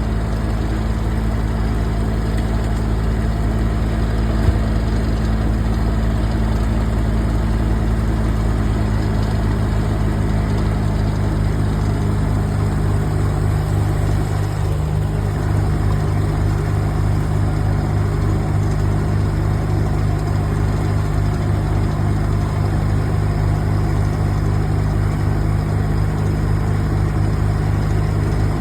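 A heavy engine running steadily at idle, a low even drone with a slight shift in tone about halfway through.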